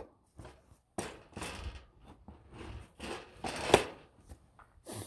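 Scattered clicks, light knocks and rustles of a cordless chainsaw's plastic and metal parts being handled, with a sharper click about a second in and another near the end.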